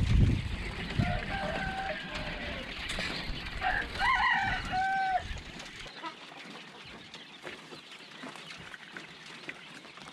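A rooster crowing, a drawn-out call in two phrases from about one to five seconds in, ending on a held note. A low rumble runs under it and stops about six seconds in.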